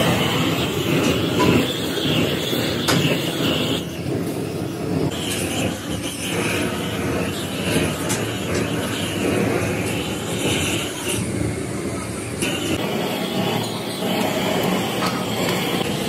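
Gas torch flame blasting into sand casting moulds: a steady, loud rushing noise that shifts in tone a couple of times.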